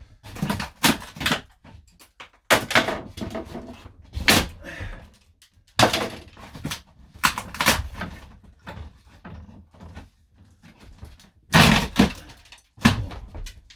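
Irregular knocks, thuds and clatter of hand work stripping a camper van's interior fittings, with a loud cluster of knocks near the end.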